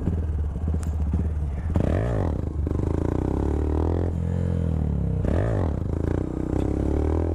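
Honda Grom's 125 cc single-cylinder engine running as the bike rolls along. The revs rise and fall twice with quick throttle blips, about two and five seconds in, then climb steadily near the end as the bike accelerates.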